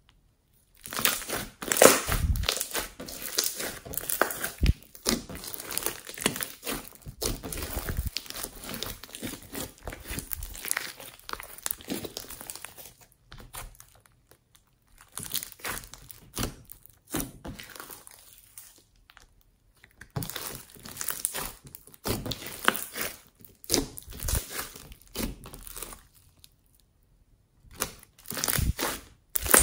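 Foam-bead slime being stretched, folded and squeezed by hand, crackling with many quick clicks and pops. It stops for short pauses a few times.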